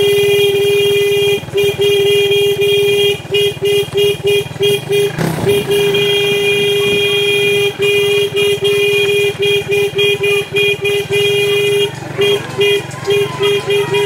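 A motor vehicle engine running steadily, with a horn-like tone sounding almost continuously over it, broken by many brief gaps.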